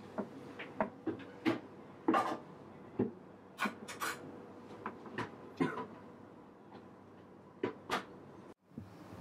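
Irregular kitchen handling noise: clicks and clinks of dishes and utensils mixed with short rustles of a plastic bag, stopping abruptly near the end.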